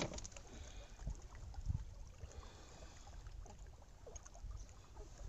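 Small waves lapping faintly against a rocky shore, with a few soft knocks.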